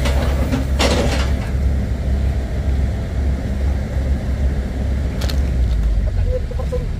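Large truck engine running low and steady, with a short hiss about a second in and a fainter one a little after five seconds.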